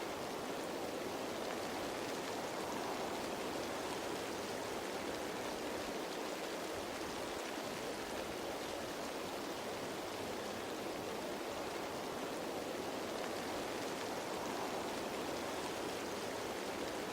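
Steady rain falling on leaves, an even hiss of many drops at a constant level.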